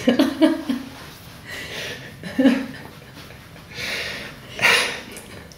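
A man and a woman laughing: short voiced chuckles near the start and again about two and a half seconds in, then breathy exhaled laughs around four and five seconds in.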